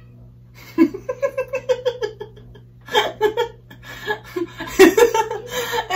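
A woman giggling in quick, high-pitched runs of short laughs, in fits that start about a second in and come again twice. A steady low hum runs underneath.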